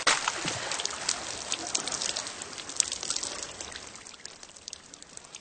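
Water splashing and streaming off a person climbing out of a stone fountain, with many sharp drips pattering down. It is loudest at the start and dies away gradually.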